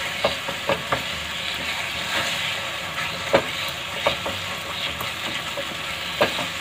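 Gajar ka halwa (grated carrots cooked down with sugar) sizzling steadily in a nonstick kadai while a silicone spatula stirs and scrapes it, with irregular soft scrapes and taps against the pan. The sugar has released its water and the wet halwa is being cooked on a slow flame until that syrup dries off.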